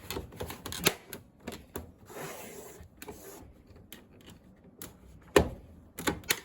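Plastic parts of an SP-1130 document scanner being fitted back together by hand: scattered clicks and knocks, a brief scraping slide about two seconds in, and a sharp snap a little after five seconds.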